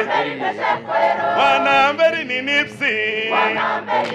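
A choir singing, several voices together on held notes that slide up and down.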